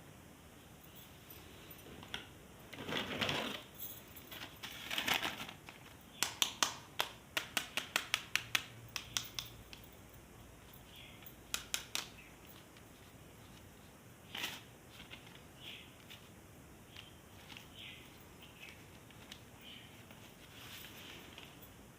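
Plastic toys and packaging being handled: two brief rustles, then a quick run of about a dozen sharp plastic clicks, followed by a few scattered clicks.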